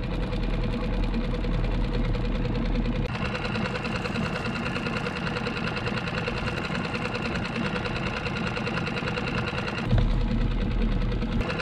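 Small outboard motor on a skiff running steadily. Its sound changes about three seconds in and again about ten seconds in.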